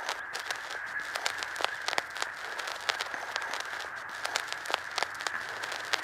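Close-up eating sounds: irregular sharp clicks and crackles, several a second, as a dry smoked fish (tinapa) is picked apart with the fingers and eaten, over a steady hiss.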